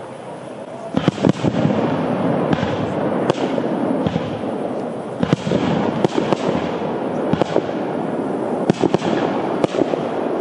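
Fireworks display: aerial shells bursting, with sharp bangs coming a second or less apart over a continuous dense crackle.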